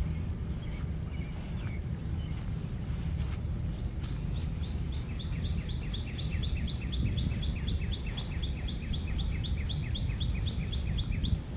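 A songbird singing a long, fast run of quick downslurred notes, about five a second, starting about four and a half seconds in and stopping just before the end, after a few scattered single chirps. A steady low rumble lies underneath.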